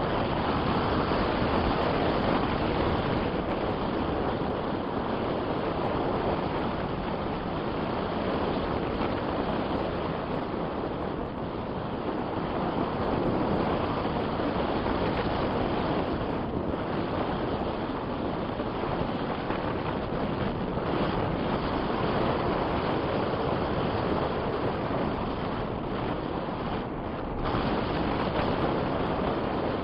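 Strong wind buffeting the microphone: a steady rushing noise with small rises and falls in strength.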